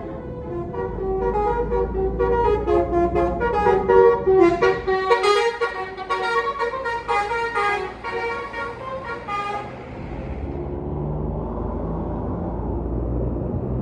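Tour bus's Basuri telolet musical horn playing a quick tune of changing notes for about ten seconds, over the low rumble of the bus engine. After the tune stops, the engine runs on.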